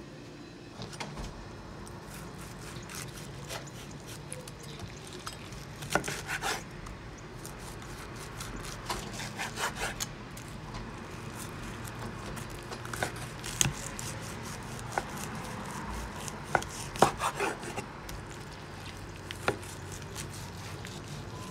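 A large knife sawing through a rack of barbecued ribs on a wooden cutting board, held steady with a meat fork. Irregular scrapes, and a few sharp knocks of the blade on the board, come in small clusters every few seconds.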